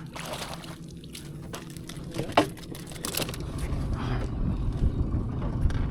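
Knocks and rustling of handling aboard a fishing boat, with one sharp knock about two and a half seconds in; from about halfway, the low rumble of the boat's motor rises underneath.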